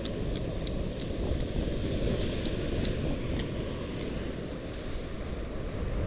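Steady wind buffeting the microphone over the wash of ocean surf.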